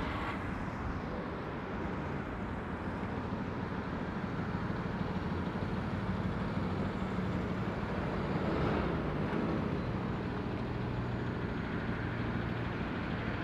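Road traffic on a roundabout: cars passing and a rigid box lorry's diesel engine running as the lorry moves slowly round. It is a steady hum that rises a little about two-thirds of the way in.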